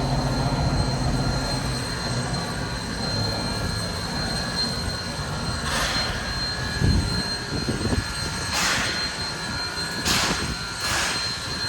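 Steam locomotive, Baldwin switcher No. 26, hissing steadily, with a low hum fading out in the first seconds and a few separate puffs of exhaust steam in the second half.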